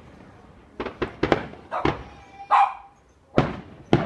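Fireworks going off: a quick series of sharp bangs, each dying away, starting about a second in. A dog barks once about halfway through.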